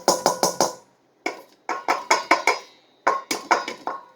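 Rapid sharp metallic taps on a hand coffee grinder, in three quick bursts of about five to eight taps each, every tap ringing briefly.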